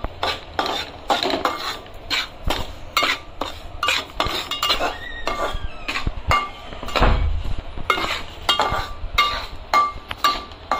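Metal spatula scraping and clinking against a metal pot in a quick, steady rhythm of about two to three strokes a second, as dry ragi flour and semolina are stirred while roasting in ghee.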